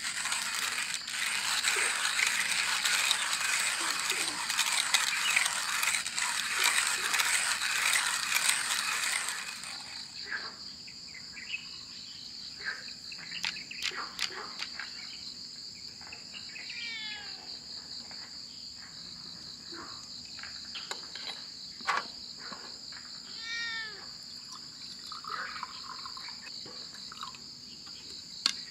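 Hand coffee grinder crushing beans, a dense steady grinding for about ten seconds that then stops. After it come scattered clicks and taps of the metal Bialetti moka pot's parts being handled. Insects drone steadily at a high pitch throughout.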